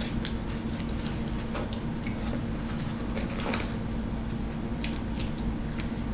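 Faint, scattered clicks and ticks of someone eating at a table, over a steady low hum.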